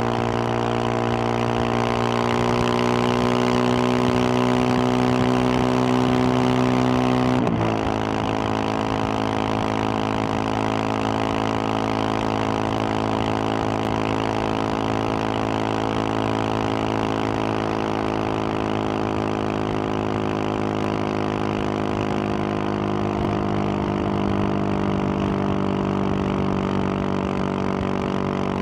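2021 Husqvarna 701 Supermoto's single-cylinder engine through its Wings aftermarket exhaust, pulling at highway speed over a steady rush of wind and road noise. The engine note climbs slowly, then drops at once about seven and a half seconds in as it shifts up a gear, and holds steady from there with a slight rise near the end.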